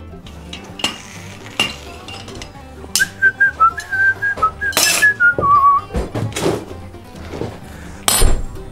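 A person whistling a short, wavering tune for about three seconds, among light metal clinks and taps of blacksmithing tools on steel. There is a louder sharp metal knock near the end.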